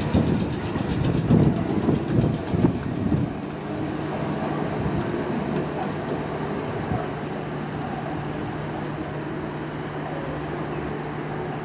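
Electric multiple-unit train running past, its wheels knocking and clattering over the rail joints for about the first three seconds before the noise drops away, leaving a steady low hum.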